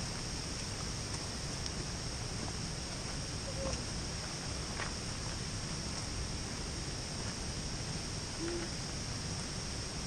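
Steady outdoor ambience: a constant high-pitched buzz over a low, even hiss, with a faint short sound now and then.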